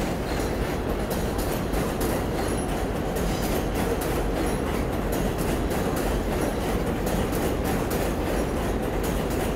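R188 subway train rolling past on elevated track: a steady, loud rumble of wheels on rail with frequent clicks and a few brief wheel squeaks.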